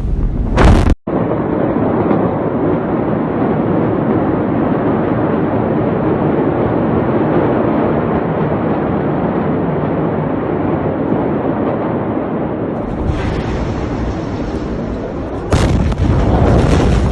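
Sounds of the Beirut port explosion as caught on phone video, spliced from several clips. A loud burst is cut off abruptly about a second in. Long, steady, noisy sound follows, and a second sudden loud blast comes near the end.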